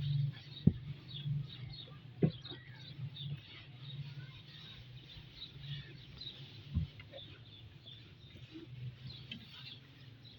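Birds chirping faintly and sporadically over a low steady hum, with a few short soft knocks.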